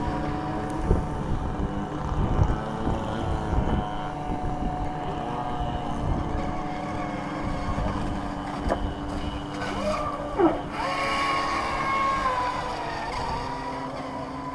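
Radio-controlled model powerboats racing, their motors running at a steady high pitch. About ten seconds in, one motor's note drops sharply and then climbs again.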